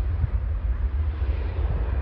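Mitsubishi CRJ-900ER regional jet's two rear-mounted turbofans at takeoff thrust as it lifts off and climbs away: a steady, loud low rumble with an even hiss above it.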